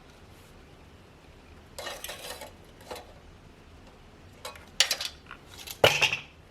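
Hard parts clinking and clattering as they are handled, in a short burst about two seconds in and a louder flurry of knocks and clicks near the end.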